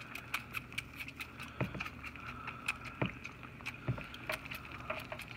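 Baby goats suckling on feeding-bottle nipples: a steady rhythm of small wet sucking clicks, about three a second, with a few duller knocks in between.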